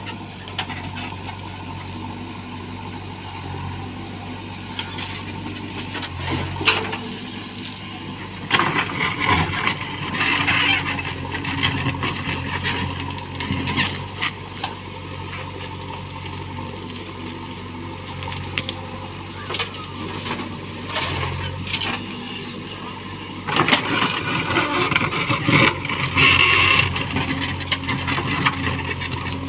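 Heavy-machinery diesel engine running steadily, with two louder stretches of scraping and clatter, about a third of the way in and again near the end.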